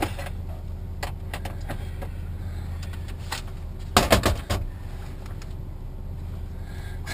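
Van engine idling, heard from inside the cab, with scattered light clicks and a quick cluster of sharp clicks and knocks about four seconds in.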